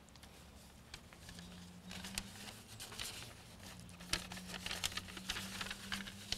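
Paper rustling and crinkling as sheets are handled at a podium microphone, a scatter of soft crinkles and clicks that grows busier after about two seconds. A faint steady low hum runs underneath.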